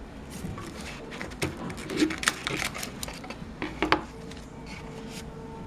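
Hands handling a smartphone battery and its cardboard box: a run of light plastic clicks, taps and rustles, the sharpest about two seconds in and again just before four seconds.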